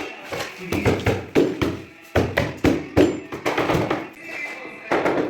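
Parquet flooring pieces being knocked into place: a quick irregular run of about a dozen sharp knocks, two to three a second, then a short pause and a few more near the end.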